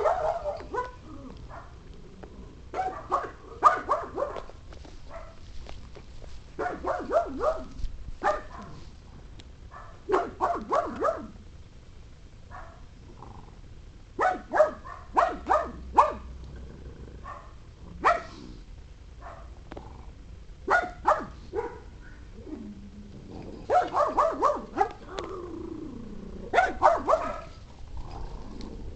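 A pug barking in repeated bursts of several quick, high barks, with pauses of a couple of seconds between bursts.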